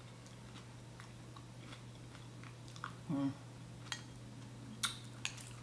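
A person chewing and eating soft corn grits with sardines off a fork: small wet mouth clicks and smacks scattered through, with a short hummed vocal sound about three seconds in.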